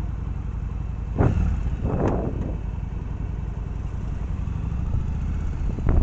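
Motorcycle engine running at low road speed, a steady low note, with two brief louder bursts about one and two seconds in.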